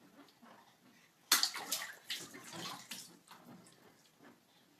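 Water splashing, starting abruptly about a second in and going on irregularly.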